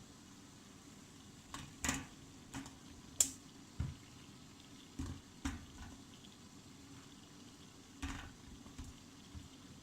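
Water simmering faintly in the base of a couscoussier, with light clicks and knocks scattered through as things are handled in the steamer.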